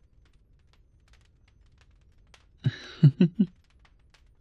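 A man's soft, short chuckle of a few quick pulses about two and a half seconds in, with faint light clicks otherwise.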